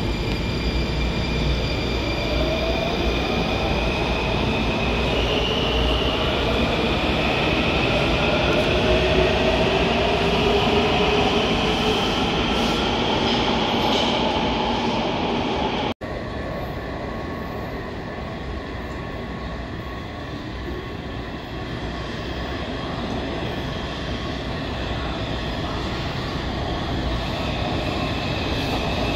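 Washington Metrorail train in an underground station, its motors whining in several rising tones as it pulls out. After an abrupt cut about halfway, the steady rumble of another train arriving, growing louder near the end.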